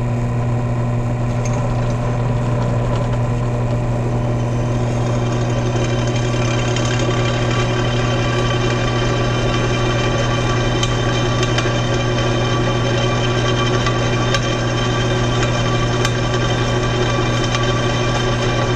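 Benchtop drill press running, its motor humming steadily while the bit drills through a metal bar. The higher cutting noise grows about four to five seconds in.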